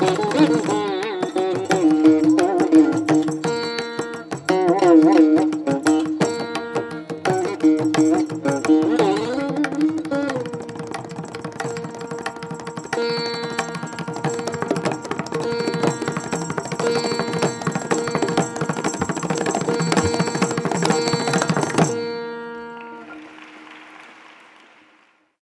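Indian classical instrumental music with tabla, a melody that bends in pitch over steady held drone notes. It breaks off about 22 seconds in and the last sound fades away.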